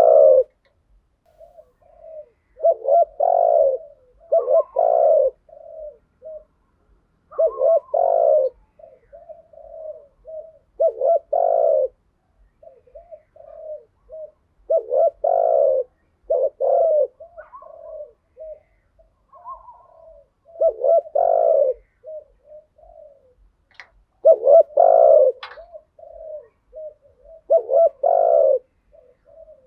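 Spotted dove cooing: phrases of a few low, loud coos every three or four seconds, with softer short coos between them.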